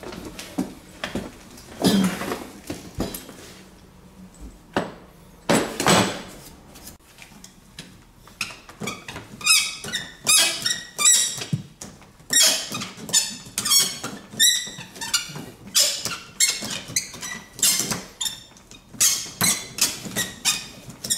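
Tubing cutter worked back and forth around a baseboard heater's copper pipe, its wheel squeaking in short strokes about twice a second. Before that, a couple of louder scraping knocks in the first few seconds.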